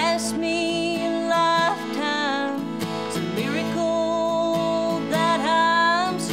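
A woman singing a slow song with long held notes, accompanying herself by strumming a steel-string acoustic guitar.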